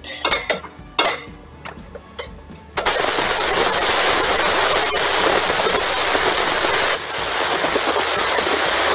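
A few knocks and clinks of a wooden spatula on a stainless steel pot. About three seconds in, minced beef is tipped into hot vegetable oil and it starts sizzling, loud and steady, with a short dip near the end.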